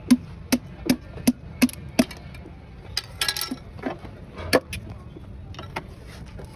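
Sharp tool knocks during truck engine piston ring work: six knocks about a third of a second apart, then a brief metallic clatter and a few more scattered knocks.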